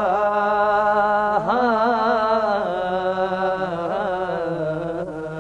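Male chorus singing an Urdu salam, drawing out the last syllable of a line in one long, wavering held note that grows gradually softer.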